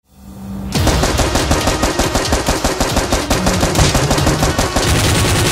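Rapid automatic gunfire sound effect, a dense, unbroken run of shots that starts abruptly about three-quarters of a second in, after a brief hush.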